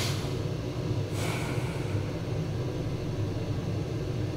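Steady low hum of an induction hob heating a pan, with a soft brief hiss about a second in.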